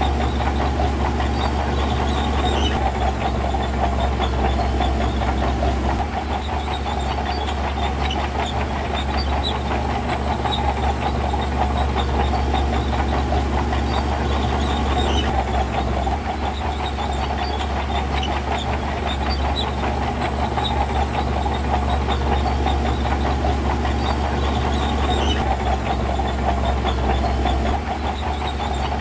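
Diesel engine of heavy earthmoving machinery running steadily under load, with a steady low rumble and a light metallic clatter throughout.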